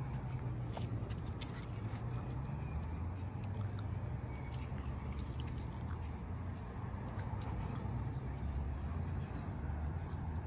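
Steady low rumble of street ambience with a thin, continuous high-pitched tone over it and a few faint clicks.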